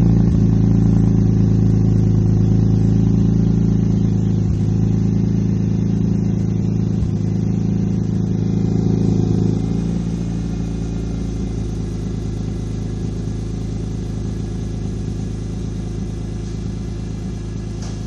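BMW E46 M3's S54 inline-six engine idling steadily. The idle is what the owner questions as rough, possibly a misfire. It becomes slightly quieter about ten seconds in.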